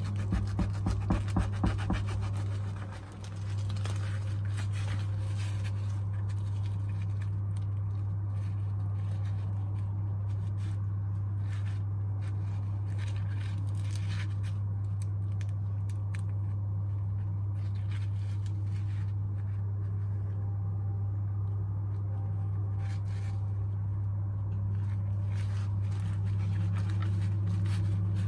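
A knife sawing through crisp, layered flatbread on a wooden board, a quick run of strokes in the first two seconds, then the flaky layers crackling and rustling as the cut pieces are handled. A steady low hum runs underneath throughout.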